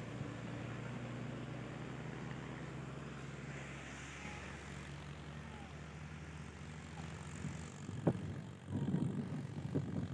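Mahindra Arjun 605 tractor's four-cylinder diesel engine running under load as it pulls two trailers heaped with sugarcane, its steady hum fading as it moves away. From about eight seconds in, a series of muffled thumps.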